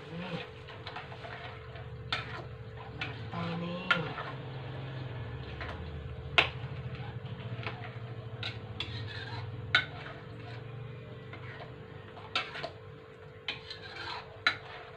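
Metal spatula stirring a thick spice paste in a wok, scraping the pan and knocking against its sides in sharp, irregular clinks, over a steady low hum.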